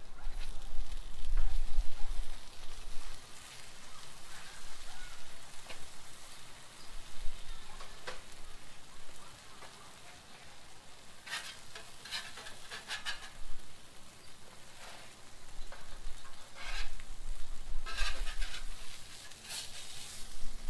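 Food sizzling on a Blackstone steel griddle, with a metal spatula scraping and clacking on the cooking plate in short bursts several times in the second half.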